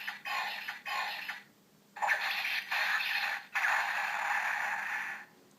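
DX Dice Saber toy sword playing electronic sound effects through its small speaker after scanning a Wizard Ring. A few short pulses come in quick succession, then after a pause one longer rough, noisy effect of about three seconds that cuts off sharply.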